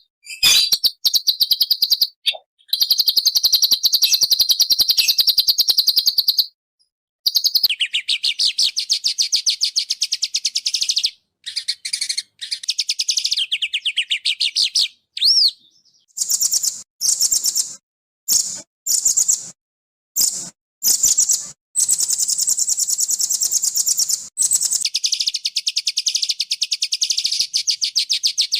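Small songbird singing rapid, high-pitched trills in long runs, broken by short pauses, with shorter choppy phrases in the middle.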